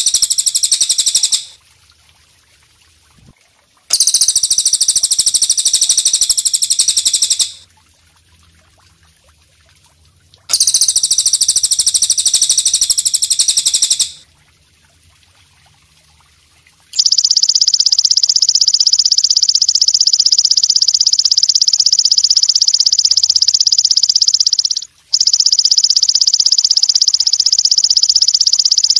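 Belalang kecek katydid (bush cricket) stridulating: a fast, buzzing, high trill at a steady pitch. It comes in bursts of about three and a half seconds with three-second gaps, then runs on unbroken for about eight seconds, stops for a moment, and starts again.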